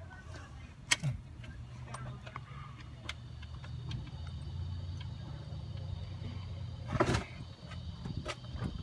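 Hand tools working on metal in an engine bay: a few light clicks, and one louder clank about seven seconds in, over a steady low hum.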